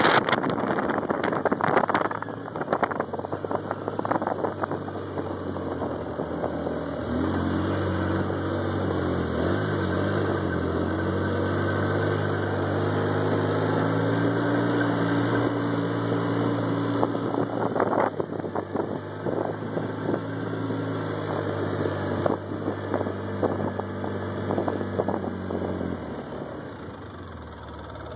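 Polaris ATV engine running as the quad is ridden over grass, with wind buffeting the microphone and some rattling knocks in the first couple of seconds. The engine note then holds a steady pitch and drops away near the end.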